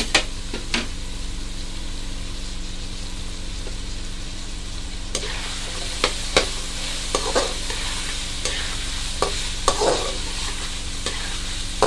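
Chicken pieces and diced carrots sizzling in hot oil in a heavy black karahi, with a steady hiss. A spatula scrapes and knocks against the pan as the food is stirred: a couple of strokes at the start, then a run of them from about halfway through.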